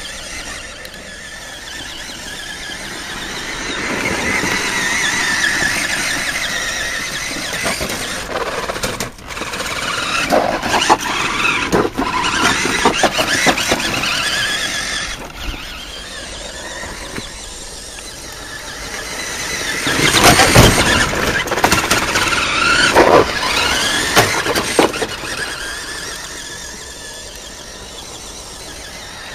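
Electric motor and gearbox of a radio-controlled New Bright Hummer H2 toy truck whining, rising and falling in pitch as it speeds up and slows down. It is loudest in two stretches, with a few clatters in the second.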